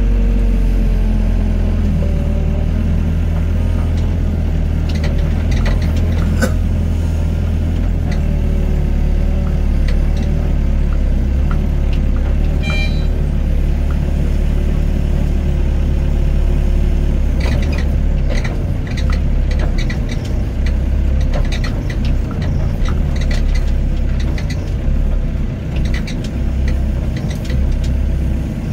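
Doosan excavator's diesel engine running at working speed with its hydraulics, while it loads sand into dump trucks. It is a heavy, steady rumble with a droning tone that shifts slightly in pitch as the machine works. The rumble turns uneven about halfway through, with scattered knocks and a brief high squeal near the middle.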